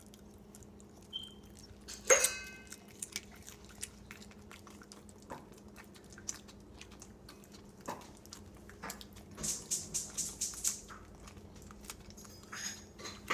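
A pug crunching a spicy potato chip: one loud crunch about two seconds in, then scattered chewing and smacking clicks. Later there is a quick rhythmic run of wet licking, about six a second.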